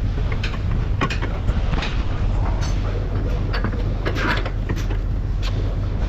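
Clinks, knocks and scrapes of metal tools and parts being handled during wheel-bearing work, over a steady low hum.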